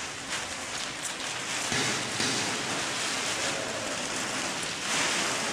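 Steady shuffling rush of many feet dragged along a stone church floor: the float's bearers (costaleros) moving the paso forward in short sliding steps. It grows louder a little under two seconds in.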